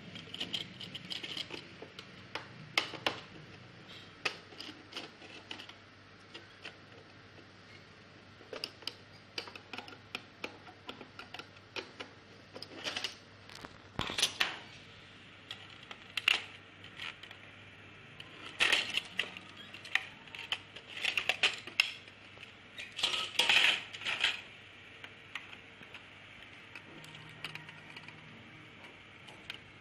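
Scattered clicks and light clatter of small plastic and metal parts being handled while a projector is taken apart, with a few denser clusters of sharper taps.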